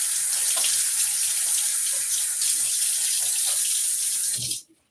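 Bathroom sink tap running steadily into the basin while the face is wetted before a wet shave; the tap is shut off suddenly near the end.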